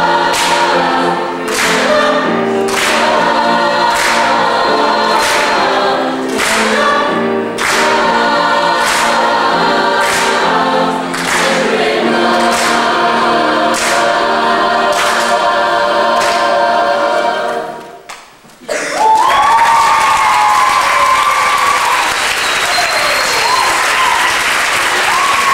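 High school chorus singing, with a sharp beat marked about once a second. The song ends about 18 seconds in, and after a brief pause the audience breaks into applause and cheering.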